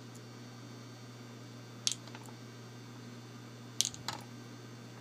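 A few small, sharp clicks of lock pins and parts being set down one at a time: one near two seconds in, then two close together near the end, over a steady low hum.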